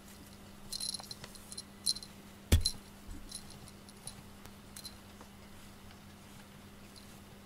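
Small metal bell on a cat's collar jingling softly several times as the cat is stroked and moves, with one sharp knock about two and a half seconds in, the loudest thing heard.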